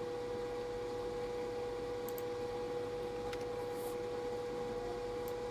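Room tone: a steady hiss with a constant high-pitched hum, and a few faint ticks.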